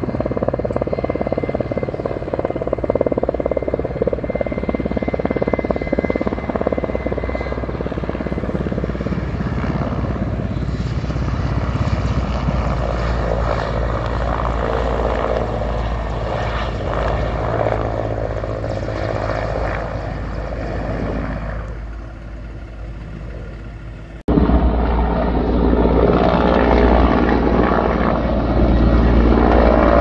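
Firefighting helicopter's rotor and engine drone, steady throughout, becoming louder after a sudden break about three-quarters of the way through.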